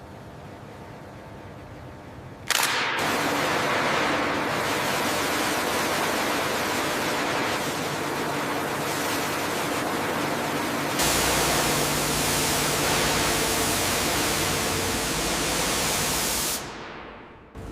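Low hum, then a loud, steady rushing hiss that starts abruptly about two and a half seconds in, grows heavier in the low end around eleven seconds, and fades out near the end.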